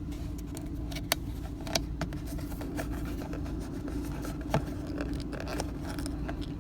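Light clicks and knocks of plastic RV toilet valve parts being handled and pushed into place, three sharper clicks among them, over a steady low hum.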